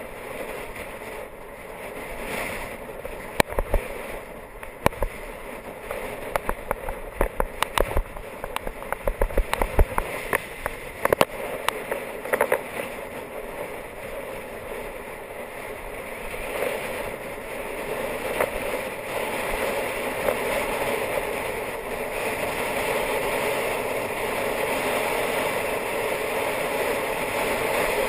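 Wind rushing over a bike-mounted camera, with tyre noise from a road bike descending on tarmac. A run of irregular sharp knocks and rattles in the first half, then the rush grows louder and steadier.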